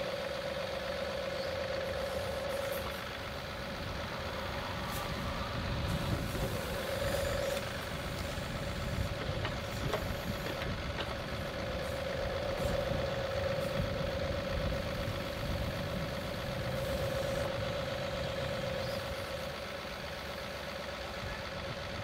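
John Deere 2038R compact tractor's three-cylinder diesel running under load while its backhoe digs out a pond bank. A steady whine swells and eases several times as the boom and bucket are worked.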